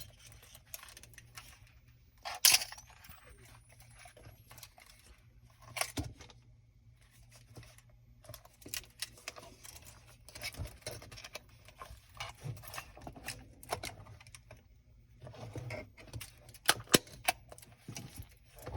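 Sharp mechanical clicks from a Canon AE-1 camera and its Speedlite 155A flash being operated. About two and a half seconds in, a loud click is followed by a faint, high whine rising steadily in pitch: the flash charging up. There is another sharp click around six seconds in and a quick run of clicks near the end.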